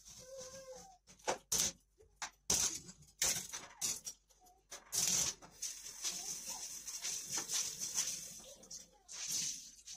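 Kitchen utensils and a plastic cutting board knocking and clattering as they are set down on a stainless steel sink drainer: a quick run of sharp knocks, then several seconds of scrubbing and rubbing with a sponge.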